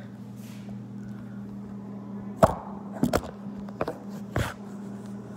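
A handful of knocks and clunks from things being handled and set down, the loudest about two and a half seconds in, with four more over the next two seconds, over a steady low hum.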